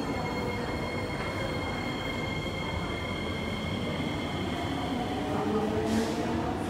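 Kawasaki C151A electric multiple unit train running, with steady high-pitched tones that fade out past the middle and a low whine that rises in pitch near the end as the train picks up speed.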